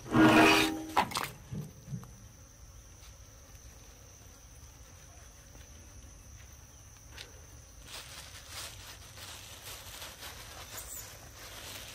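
A short, loud cry right at the start, then a few light knocks. After that comes quiet outdoor ambience with a steady high-pitched insect drone and faint rustling.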